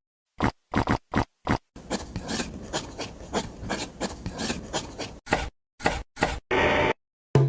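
Rasping and scraping of hand work on miniature craft materials, in short strokes cut off by sudden silences. A longer stretch of continuous scraping comes in the middle, and a brief steady rushing noise comes near the end.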